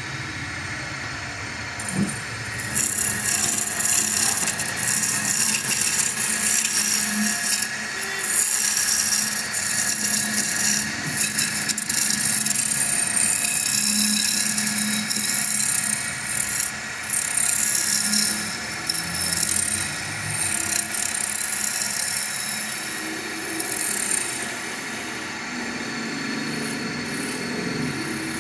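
A hand-held turning tool cutting a spinning wooden chair-leg blank on a wood lathe: a scraping rush of shavings peeling off in long passes with short breaks. The cutting starts about two seconds in and eases off near the end.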